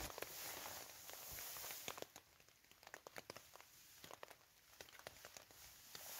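Faint rustling and crinkling of hammock fabric being handled as the hammock and under-blanket are fitted, with scattered light ticks; the rustle is steadiest in the first couple of seconds, then thins out.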